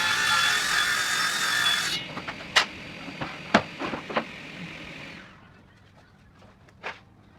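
A power tool running with a high whine, switched off about two seconds in, its hum fading out over the next few seconds. Several sharp knocks and clicks sound over the fading hum.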